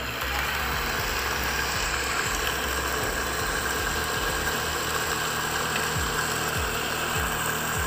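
Electric countertop blender motor running steadily at full speed, its blades grinding peanuts into a coarse, thick meal for peanut butter.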